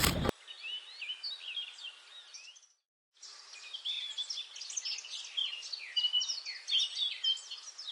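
Many small birds chirping and twittering together in quick, overlapping high notes. The chirping cuts out briefly about three seconds in, then returns busier.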